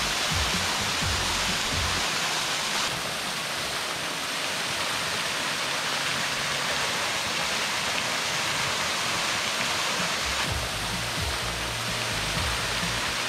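Waterfall pouring down a rock face into a shallow pool: a steady rush of falling water. The sound shifts abruptly about three seconds in and again about ten seconds in.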